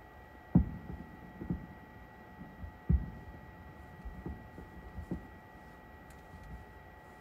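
Distant fireworks: aerial shells bursting as dull low thuds, about five of them, the loudest about half a second in and again about three seconds in. A faint steady hum runs underneath.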